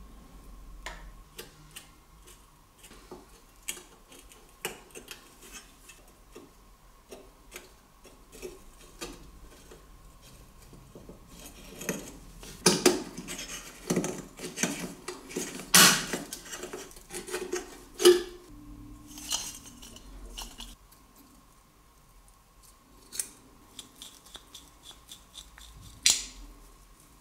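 Rusty steel lantern parts handled and worked apart by hand: scattered light metallic clicks and clinks, becoming a busier run of sharper clinks and scrapes in the middle, then thinning out again.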